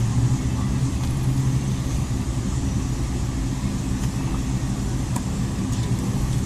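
Steady low droning hum, like a motor running, with a few faint light clicks about four to five seconds in.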